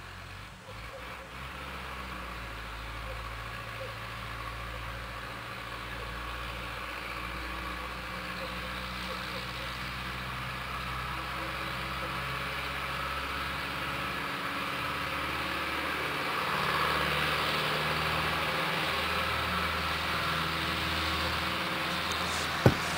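Ursus C-360 tractor's diesel engine working hard under a heavy trailer load as it comes closer, its low steady note growing slowly louder. A single sharp knock near the end.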